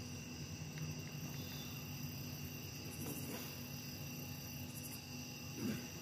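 Faint, steady night chorus of crickets trilling.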